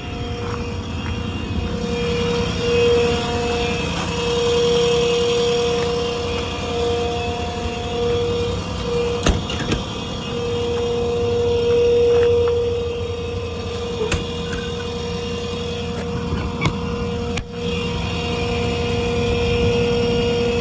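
Ford 6.7 Power Stroke diesel running, with the truck's hydraulic pump putting out a steady whine that swells and fades several times as the hydraulics work. A few sharp clicks and clunks come in the second half.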